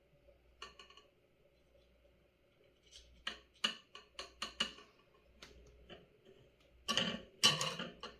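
Light clicks and taps of small hand tools on a circuit board while soldering tiny SMD parts: a few near the start, a quick run of about six a little past the middle, and a louder cluster near the end.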